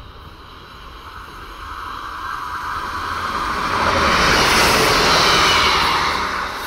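Northern Class 158 diesel multiple unit passing through the station. Its rush grows from about a second in, is loudest about four to six seconds in as it goes by, then starts to fade.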